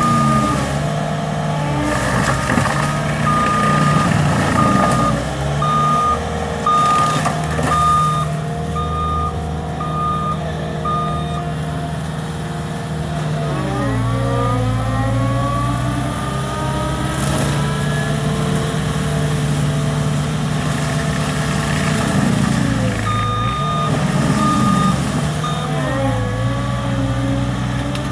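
Caterpillar skid steer loader's diesel engine running under load, its pitch dipping and rising as the machine works. Its backup alarm beeps steadily while it reverses, for the first ten seconds or so and again briefly near the end.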